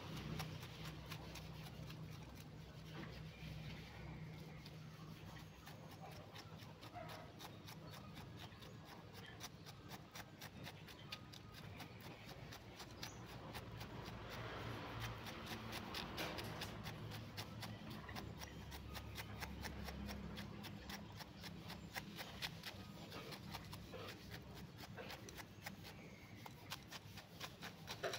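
Faint scratching and small clicks of a thin stick being poked and worked through coarse potting soil in a small cement pot, under a low steady hum.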